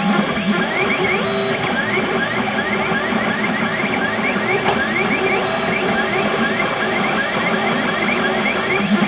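XYZ da Vinci Mini W+ 3D printer printing, its stepper motors giving short rising whines a few times a second as the print head starts and stops, over a steady hum.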